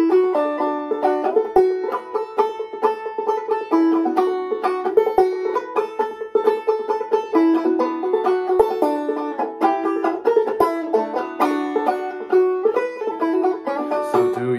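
Gold Tone open-back banjo played clawhammer style in open A tuning (aEAC#E): a steady, rhythmic stream of plucked, ringing notes.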